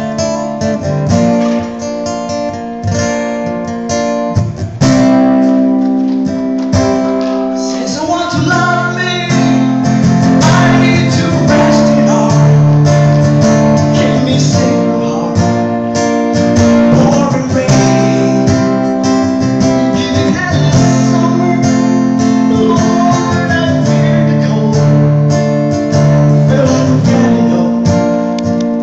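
A man singing a ballad to his own strummed guitar, played on a plugged-in frame-body silent guitar. The guitar is alone for the first few seconds, then the voice comes in over the chords.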